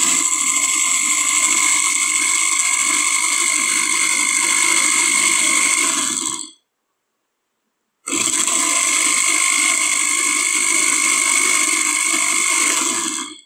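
Countertop electric blender motor running steadily, with a high whine over a whirring churn, as it blends an egg-and-oil mayonnaise mixture to an emulsion. It runs about six seconds, cuts off, then runs again for about five seconds and stops near the end.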